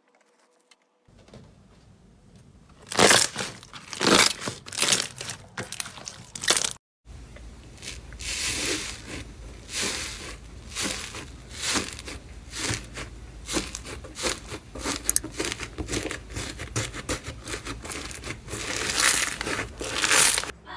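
Clear yellow slime squishing as a wire grid is pressed into it, in several loud squishes. After a short break, green iceberg slime's dried crust crackling and crunching as hands press and knead it, a dense run of crackles.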